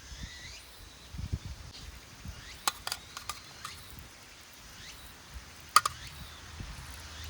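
A few sharp clicks or cracks, one near the middle and another about two-thirds of the way through, over a faint outdoor background with thin high chirps.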